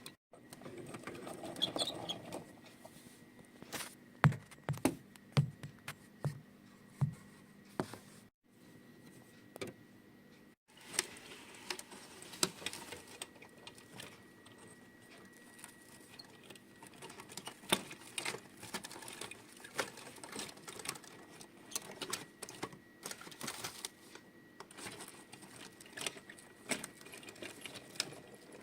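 Irregular clicks, taps and small rattles of diecast toy farm models being handled, some in quick runs, with two brief dropouts about a third of the way in.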